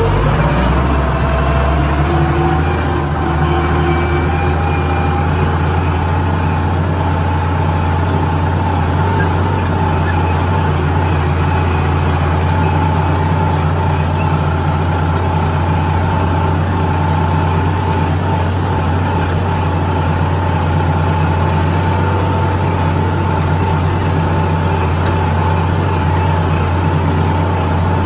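Massey Ferguson tractor's diesel engine running steadily, heard from inside the cab as the tractor pulls a disc harrow. The engine's pitch rises over the first two or three seconds, then holds even.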